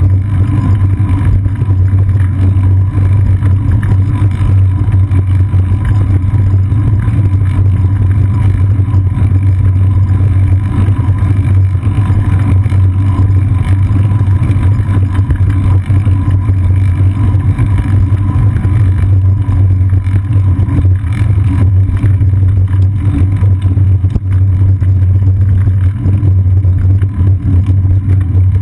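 Loud, steady low rumble of wind buffeting and road vibration picked up by a GoPro Hero 2 on a bicycle's seat post, riding along a paved path into a strong wind.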